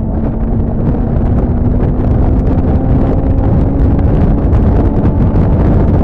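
Loud wind buffeting the microphone, with a steady engine hum underneath that drifts slightly lower in pitch.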